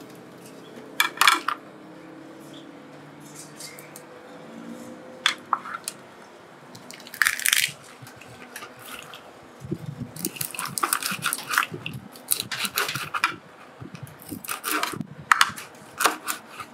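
Giant river prawn shell crackling and crunching as it is worked off by hand with a plastic knife on a cutting board. It comes in irregular bursts, a few short ones at first and much busier in the second half.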